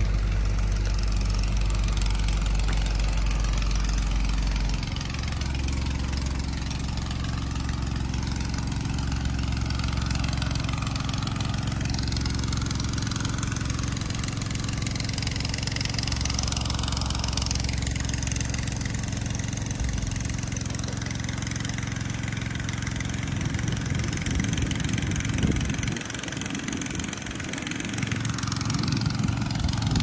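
Diesel engine of a Sumitomo hydraulic excavator idling steadily. It drops in level about five seconds in and fades further, with some gusty low rumbling near the end.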